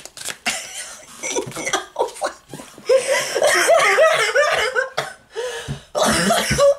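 A woman laughing hard in breathy, sputtering fits, strongest about three seconds in and again near the end.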